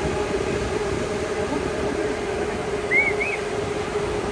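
Steady hum of a show-drone swarm's many rotors, with low gusty rumble beneath it. About three seconds in, two short high squeaks rise and fall.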